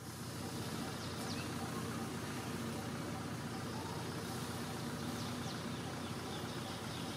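Steady outdoor background noise with a low, even hum under it, and a few faint, high, quick chirps, once about a second in and again after five seconds.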